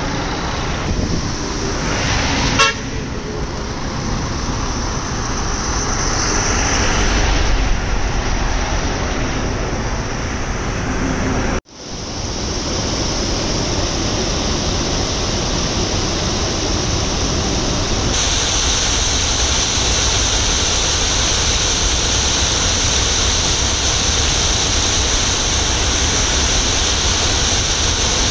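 Road traffic noise with a short horn toot about two and a half seconds in; then, after a sudden cut, the steady rush of a torrent of muddy floodwater churning over the ground.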